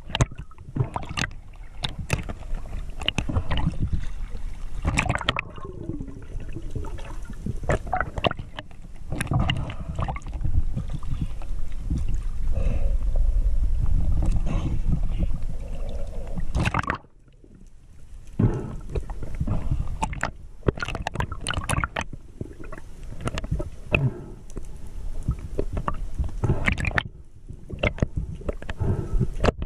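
Water sloshing and gurgling around a camera moving between underwater and the surface, with scattered knocks and splashes. The sound drops out abruptly about seventeen seconds in, then the churning and knocks pick up again.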